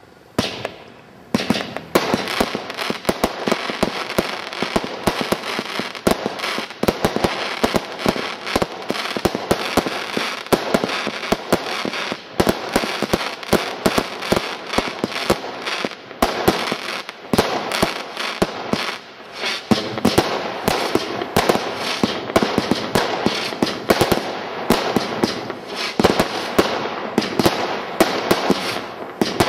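A multi-shot firework barrage cake firing: a rapid, continuous string of shots and bursts over a dense crackle. It starts about a second in.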